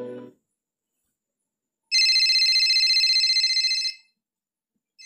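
Telephone ringing: after a short silence, one ring of about two seconds, with a second ring starting at the very end. Background music fades out at the start.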